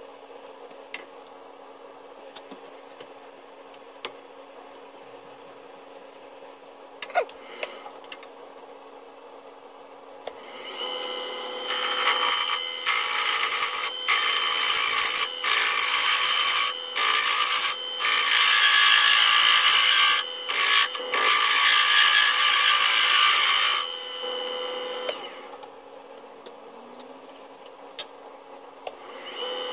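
A handheld power tool cutting into a wooden workpiece, its motor whine heard in several short on-off passes from about ten seconds in to about twenty-four seconds, starting again near the end. Before the cutting there is only a faint steady hum with a few light clicks.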